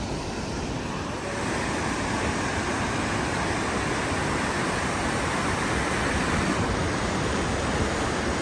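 Waterfall close by: a steady, dense rush of falling water and spray, a little louder about a second in.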